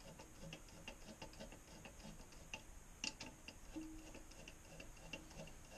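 Faint, rapid light clicking and small handling noises as the bidet seat's mounting-plate bolts are tightened by hand, with one sharper click about three seconds in.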